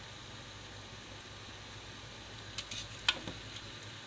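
Chicken simmering in thin coconut milk in a large wok: a steady low hiss with a few sharp pops, the loudest about three seconds in.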